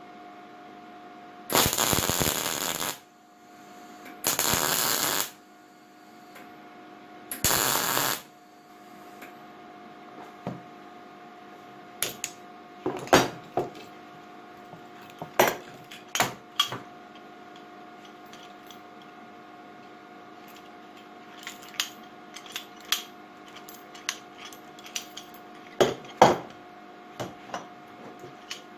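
Three short bursts of welding on steel, each about a second, with a harsh crackling hiss, in the first eight seconds. After that come scattered metal clinks and knocks as the steel grinder parts are handled, over a faint steady hum.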